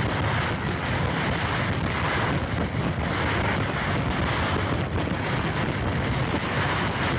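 Fireworks display: aerial shells bursting in a rapid, continuous barrage with many sharp cracks, over a steady rushing noise.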